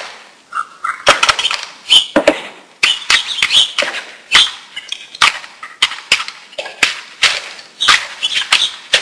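Pancake batter of flour and half the milk being whisked by hand in a plastic mixing bowl, still being worked free of lumps: the whisk clacks against the bowl in quick, uneven strokes, two or three a second, after a quiet first second.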